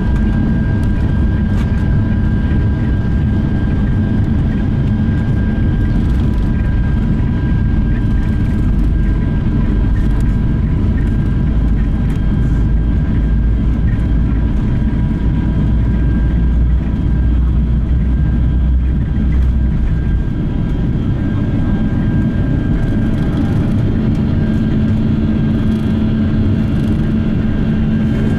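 Steady jet-engine and airflow noise heard inside the cabin of a Boeing 757-300 airliner: a dense low rumble with a few constant whining tones on top.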